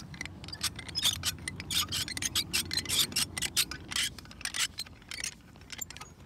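Screw-in electric-fence insulator being turned by hand with a crank tool into a wooden fence post: a quick, irregular series of short rasping scrapes as the thread cuts into the wood.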